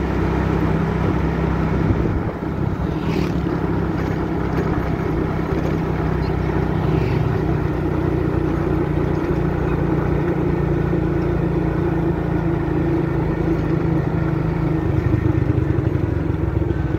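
Motorcycle engine running steadily while riding, with road noise. The engine note changes about fifteen seconds in.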